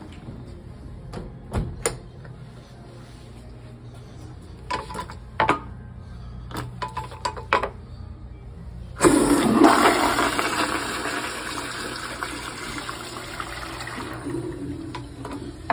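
American Standard Cadet pressure-assisted toilet flushing: a sudden loud whoosh about nine seconds in, then rushing water that slowly fades over several seconds. Before the flush there are a few sharp clicks and knocks.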